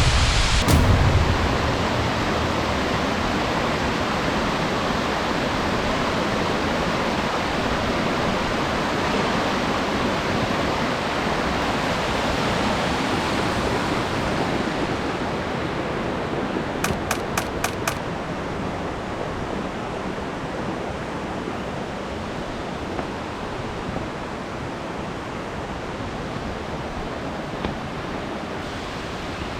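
Steady rushing roar of a tall plunge waterfall, about 60 m high, crashing into its pool. The hiss grows softer in the second half, and a short run of five quick faint clicks comes just past halfway.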